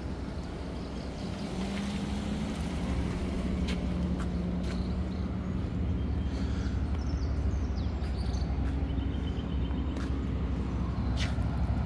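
Outdoor street sound dominated by a motor vehicle's engine running steadily, a low hum that holds for several seconds, with a few sharp clicks and faint high chirps over it.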